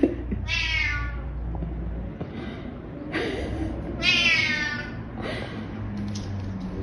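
A domestic cat meowing several times, each meow falling in pitch.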